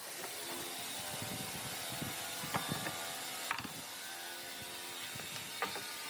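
Wood being worked by hand: a steady scraping, rasping noise broken by a few sharp clicks, the clearest about midway and near the end.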